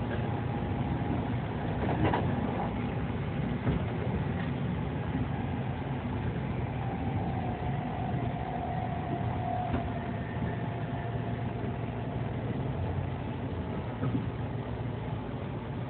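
Inside a Kintetsu electric express train running between stations: a steady low rumble with a few short clicks. A faint tone drifts slightly in pitch around the middle.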